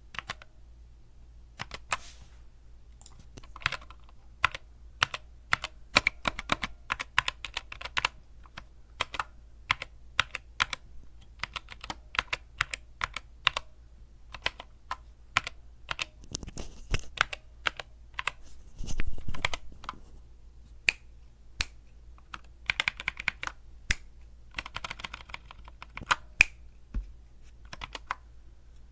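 Typing on an HK Gaming GK61 60% mechanical keyboard: a steady, irregular run of key clicks, with a louder, deeper cluster of strokes about two-thirds of the way in.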